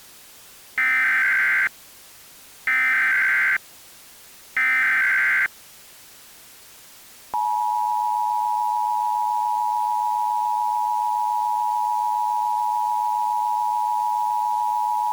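Emergency Alert System tones: three short, evenly spaced bursts of SAME header data, each just under a second, then a steady two-tone attention signal that starts about seven seconds in and holds for about eight seconds.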